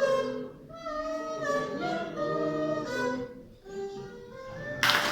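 A voice singing a short taunting children's melody in a string of held notes, the birds' song of the tale. Applause breaks out suddenly near the end.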